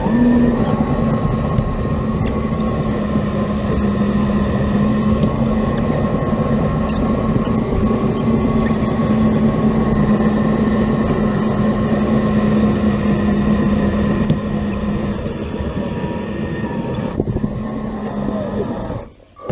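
CAT 235 excavator running steadily at working load with a constant engine-and-hydraulics hum. The sound eases off a little near the end and drops out abruptly just before the end.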